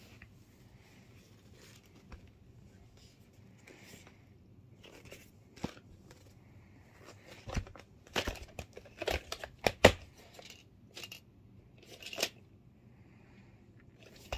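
A plastic VHS clamshell case and cassette being handled: scattered plastic clicks and clacks with soft rustling, a cluster of sharper clacks about eight to ten seconds in as the case is opened and the tape taken out.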